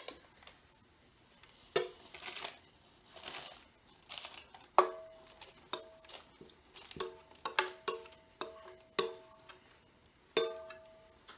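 A spoon knocking and scraping against a stainless steel mixing bowl, each knock leaving the bowl ringing, as a crumbly mix is tipped out onto parchment paper. The first few seconds hold softer rustling of the paper and mix; the knocks come repeatedly in the second half.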